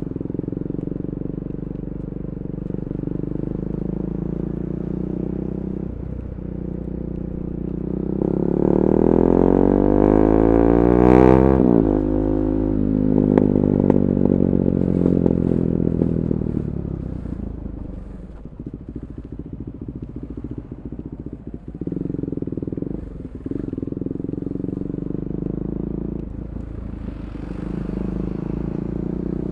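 KTM 390 Duke's single-cylinder engine through an Akrapovic Moto2 slip-on exhaust with the catalytic converter removed, running steadily. About eight seconds in, the revs climb to a loud peak with a sharp crack, then fall away over several seconds before it settles back to steady running.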